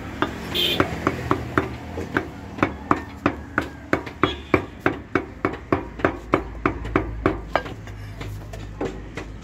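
Butcher's cleaver chopping mutton on a wooden log chopping block: a quick, even run of chops, about three a second.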